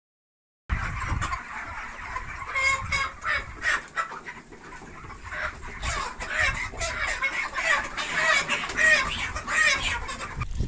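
A large flock of white broiler chickens calling all at once, many birds overlapping in a continuous chatter. It starts about a second in after a short silence and stops abruptly near the end.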